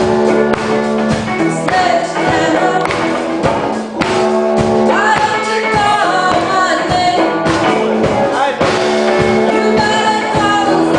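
Live rock band performing a song, a singer's voice over a steady drum beat and guitars.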